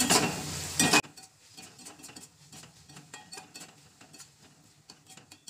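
Metal spatula scraping and clicking against a steel kadai as chicken and diced vegetables are stirred while they fry. A loud hiss fills about the first second and cuts off suddenly; after that come light, irregular scrapes and clinks.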